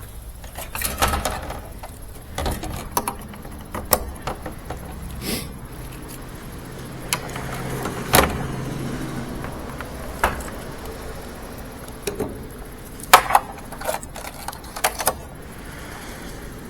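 Scattered sharp clicks, knocks and light clatter of small parts being handled, plastic and wiring pieces from a washing machine's control console, with the loudest pair of knocks about two-thirds of the way through.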